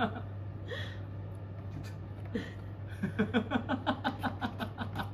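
A pet drying box's fan running with a steady low hum; about three seconds in, a person laughs briefly in a quick run of short ha-ha sounds.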